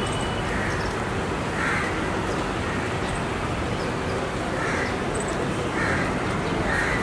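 Crows cawing, about five short caws spread out over a steady background of street noise.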